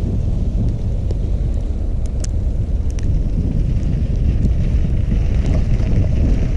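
Wind buffeting an action camera's microphone while cycling, a steady low rumble with a few faint ticks.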